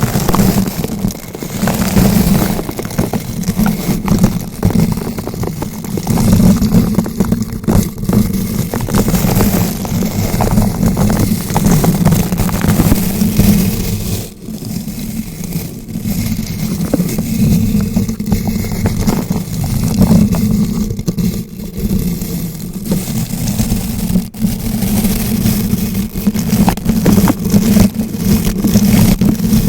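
Bristle brush rubbed round and round directly on a bare microphone: loud, close scratching and crackling over a low rumble, swelling and easing every few seconds.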